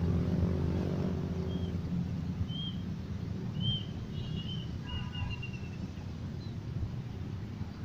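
Wind rumbling on the microphone, with a few short, high bird chirps scattered through the middle, the busiest run about four to five seconds in.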